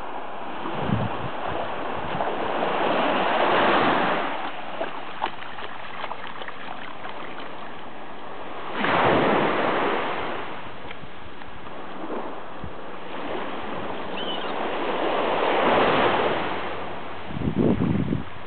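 Small waves washing onto a sandy shore, the hiss of the surf rising and falling in three long swells, with a few short gusts of wind buffeting the microphone.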